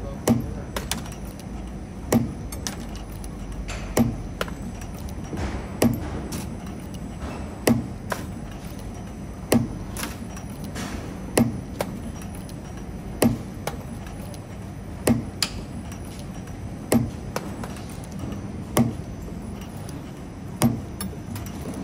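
CNC camless spring forming machine running its cycle while forming 1.4 mm wire clip springs. A sharp metallic clack repeats evenly about every two seconds, with lighter tool clicks between, over a steady machine hum.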